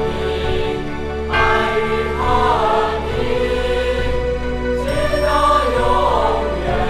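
Slow music with a choir singing long held notes over a steady low accompaniment.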